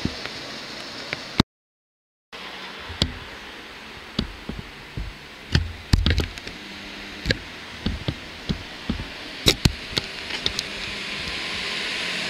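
Scattered, irregular knocks and thumps over a steady background hiss, with a short dropout to silence about a second and a half in. Over the last couple of seconds the rising sound of a euregiobahn regional train drawing near and passing takes over.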